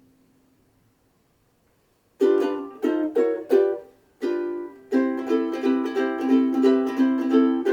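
Sumi UK-T3M soprano ukulele, a Honduran-mahogany Martin Style 3 replica, strummed. About two seconds of near silence lead into a few separate chord strums, a short pause, then steady rhythmic strumming from about five seconds in.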